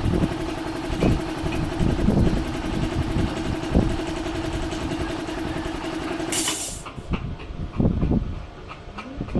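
A motor running steadily with an even hum, cutting off with a brief hiss about six and a half seconds in, followed by scattered knocks and clicks.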